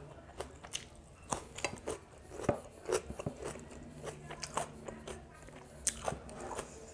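Close-up chewing of a mouthful of raw cucumber: irregular crisp crunches and wet mouth clicks.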